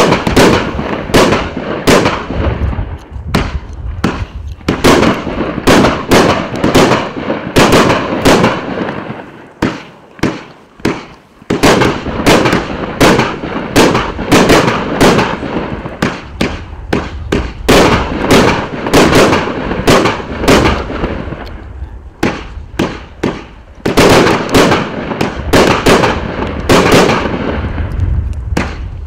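RIAKEO 1.4G consumer firework (JLP2304) firing a long rapid series of shots, with sharp bangs following one another in quick succession. The bangs ease into a short lull about ten seconds in, then resume.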